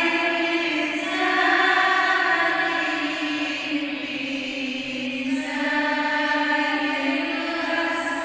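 A woman's voice chanting into a microphone in long, held melodic phrases, with a brief lull about four seconds in before the next phrase begins.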